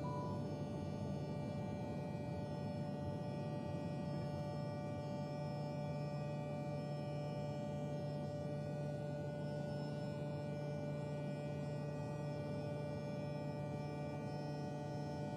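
A steady, unchanging hum made of a low drone and several held tones above it.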